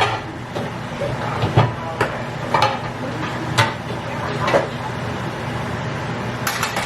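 Kitchen handling noises: a string of light knocks and clatters, roughly one a second with a quick cluster near the end, over a steady low hum.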